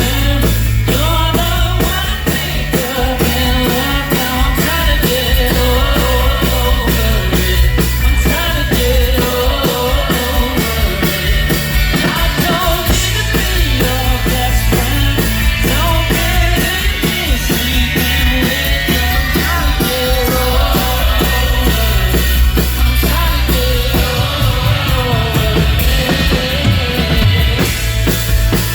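Rock band playing a song, a singer's voice over a steady drum-kit beat and heavy bass.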